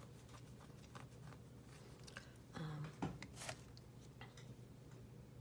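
Faint handling sounds of paper and lace: soft rustles and light taps as lace trim is laid on a glued book page and pressed down by hand. About two and a half seconds in there is a brief low hum of voice, followed by two sharper clicks.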